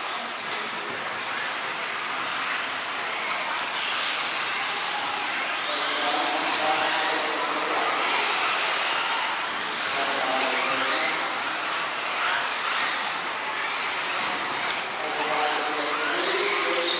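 Several electric 4WD off-road RC cars racing: their motors whine in quick, repeated rising and falling glides as they accelerate and brake, over a steady hiss.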